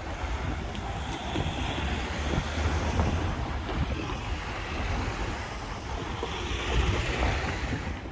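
Wind buffeting the microphone, a steady low rumble that swells in gusts, over road traffic passing the open crossing.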